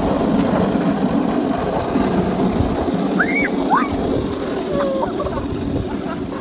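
Steady rough rumble of a plywood board sliding over asphalt with two riders on it, with a few short high squeals around the middle as they tumble off.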